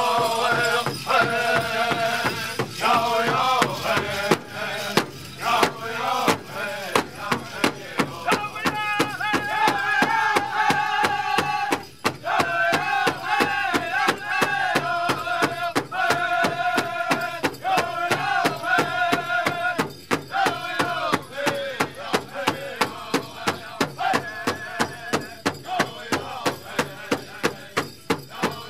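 Powwow drum group singing an intertribal song in unison while several singers strike one large shared powwow drum together with padded sticks, in a steady, even beat. Near the end the singing drops away and the drumbeat carries on alone.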